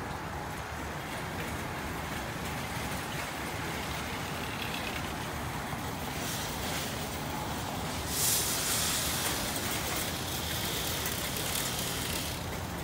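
Parking-lot ambience: a steady low rumble of traffic, with a loud hiss starting about eight seconds in and lasting about four seconds.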